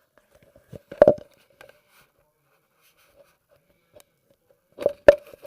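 A few sharp knocks and clicks of metal faucet parts and tools being handled at a bathtub faucet: a cluster about a second in and a louder pair near the end.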